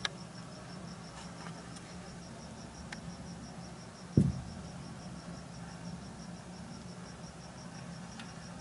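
Quiet room ambience: a steady low hum under a faint, high, evenly repeating chirp about five times a second. About four seconds in comes a single dull thump.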